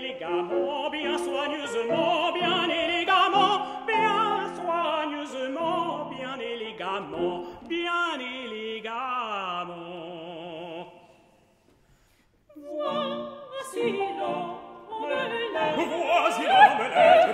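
Operatic vocal quartet singing with wide vibrato, voices overlapping; about eleven seconds in they break off together for a second of near silence, then resume singing.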